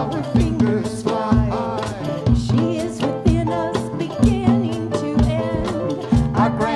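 Band music with a steady beat, a low drum hit about once a second, under a melody line that slides up and down in pitch.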